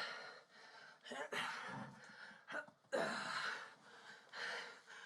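A heavy-set man breathing hard in several heavy, breathy gasps and grunts, straining as he hauls himself up onto a top bunk.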